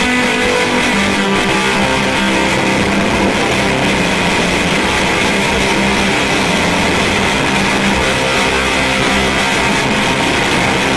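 Electric guitar played through a fuzz pedal into a Fender Deluxe Reverb amp: thick, heavily distorted sustained notes and chords at a steady, loud level.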